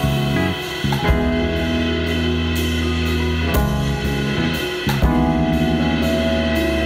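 A band playing an instrumental passage. A drum kit keeps cymbal strokes about twice a second under long held bass notes that change every second or two, with keyboards.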